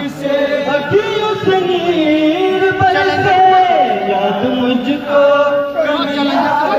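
A group of men singing a Hindu devotional bhajan together, in long held notes that bend slowly in pitch.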